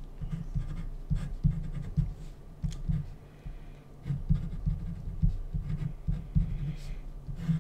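Pen writing on paper on a desk: a run of short, irregular scratching strokes as letters and symbols are written out.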